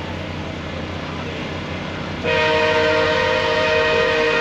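Air horn of an approaching MARC passenger locomotive, leading excursion train P936: one long, steady, chord-like blast that starts about halfway through.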